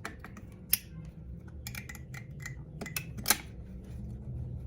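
Scattered small clicks and taps of hand tools working on the mirror assembly's metal and plastic parts. Two sharper clicks stand out, one under a second in and one a little after three seconds.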